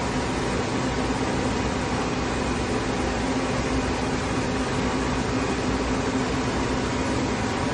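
Powered-up Phoenix CNC gear shaper giving off a steady machine hum and fan-like hiss, with a couple of faint constant tones and no cutting strokes.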